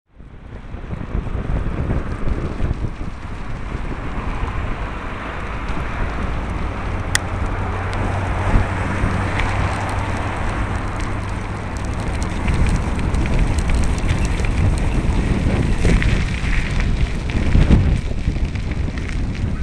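Wind buffeting the microphone of a camera carried on a moving bicycle, with the rumble and rattle of the bike rolling over rough paving. One sharp click about seven seconds in.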